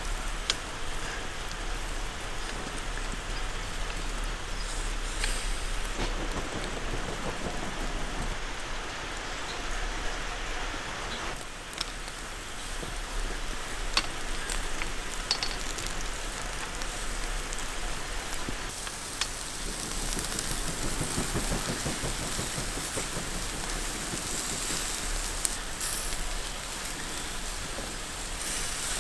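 Wild boar kebabs on metal skewers sizzling over hot charcoal, a steady crackling hiss of fat and juices dripping onto the coals. A few sharp metallic clicks come as the skewers are turned.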